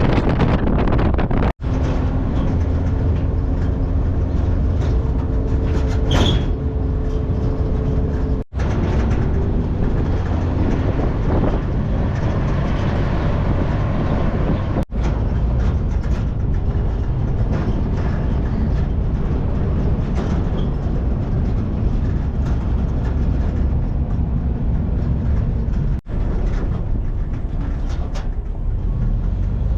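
Car driving along a road: steady engine and road rumble with wind noise. The sound cuts out for a split second four times.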